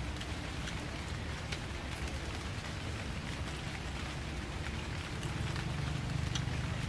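Rain falling: a steady hiss with scattered ticks of individual drops.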